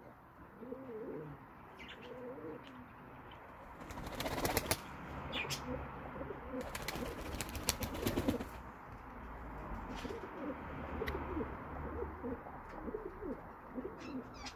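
Old Dutch Capuchine pigeons cooing repeatedly throughout, with two loud spells of wing-flapping clatter, one about four seconds in and a longer one around seven to eight seconds.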